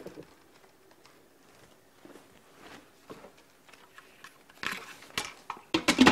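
Instant Pot pressure lid being set on the cooker and turned closed: a few soft knocks, a scrape of metal on metal, then sharper clicks near the end as it seats.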